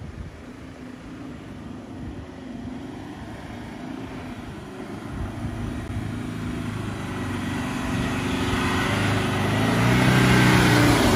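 A four-wheel drive's engine working under load on a climb. It grows steadily louder as it comes closer, is loudest near the end, then its pitch drops as it eases off.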